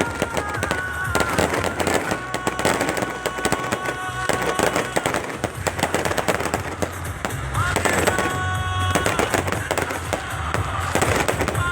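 Fireworks going off in rapid, continuous bangs and crackles, with music playing underneath.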